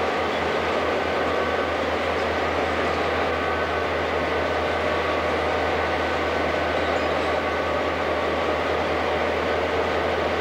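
Algoma Central F9 diesel locomotive idling inside the engine house: a steady, unchanging engine drone with a low hum underneath.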